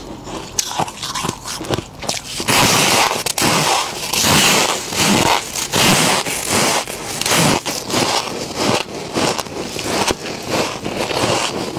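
Freezer frost crunching as it is bitten and chewed. Scattered crisp crackles give way, about two and a half seconds in, to a louder, dense run of crunching.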